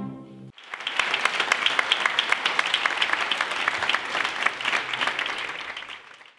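Orchestral string music dies away in the first half-second, then a concert audience applauds, fading out just before the end.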